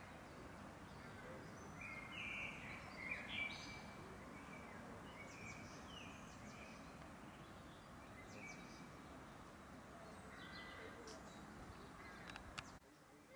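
Small birds singing and chirping faintly over a steady outdoor background hiss, with a few short phrases, the loudest about three seconds in. The background hiss drops off suddenly near the end.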